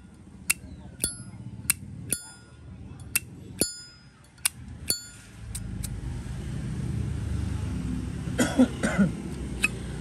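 Zippo lighter lid flicked open and snapped shut over and over, each stroke a sharp metallic clink with a brief ring, about eight in the first five seconds. From about halfway a low rumble rises underneath, with a short clatter of metal near the end.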